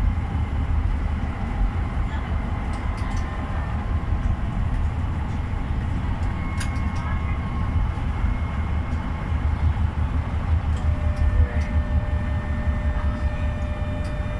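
GEC-Alsthom TFS tram running along its track, heard from inside the driver's cab: a steady low rumble with a few faint clicks. A faint steady tone joins in the last few seconds.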